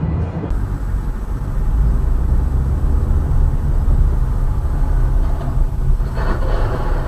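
Car driving on a road, heard from inside the cabin: a steady low rumble of engine and tyre noise, with a brief louder rush of noise about six seconds in.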